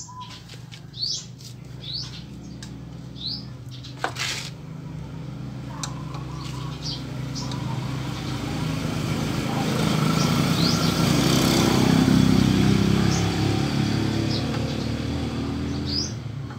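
Small birds chirping in short rising notes over a steady low motor hum that swells and fades again, as of a motor vehicle passing. A single sharp knock about four seconds in.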